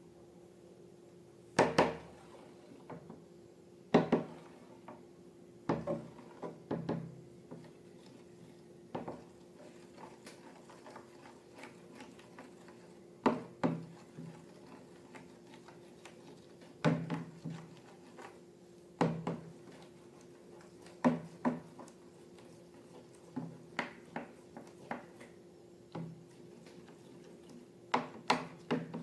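Irregular knocks and clattering taps of small objects, such as containers and tools, set down and handled on a hard surface, a dozen or so spread unevenly, over a faint steady hum.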